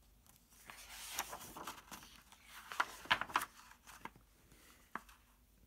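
Hardcover picture book being opened and its pages turned by hand: faint paper rustling and sliding, a cluster of crisp page clicks about three seconds in, and a single soft tap near the end.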